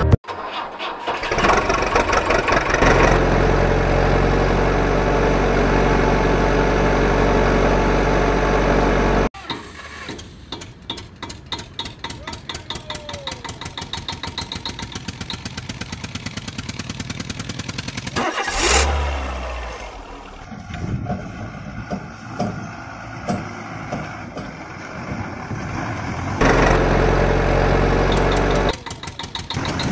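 Diesel engine sound effects laid over toy vehicles: an engine starting and running steadily, then a tractor-like engine chugging at a fast even beat, a louder surge about two-thirds in, and the steady engine sound again near the end.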